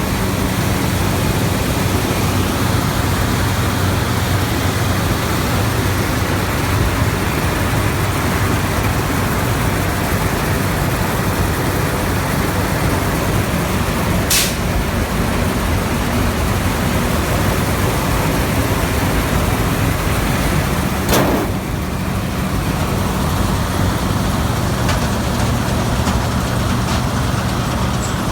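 New Holland TX68 combine harvester's Iveco 9.6-litre six-cylinder turbodiesel running steadily at idle, with two short sharp clicks about 14 and 21 seconds in.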